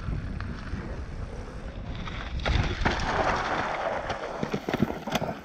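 Wind rushing over an action camera and downhill mountain-bike tyres rolling over a loose gravel trail. From about two and a half seconds in, a louder gravelly scraping with scattered clicks as the rider ahead crashes and slides through the gravel.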